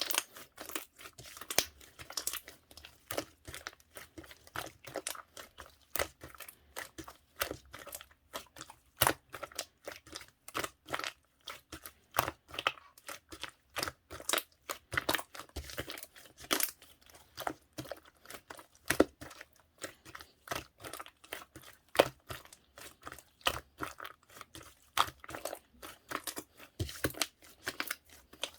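Slime being worked by hand, giving a dense, irregular run of sharp crackling clicks and pops, several a second.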